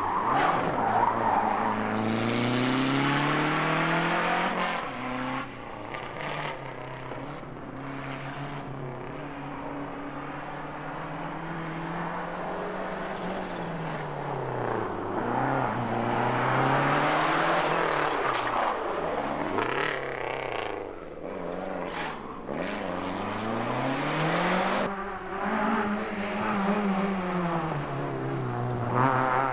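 Rally car engine revving hard. Its pitch climbs as it accelerates, then drops back on lifts and gear changes, over and over.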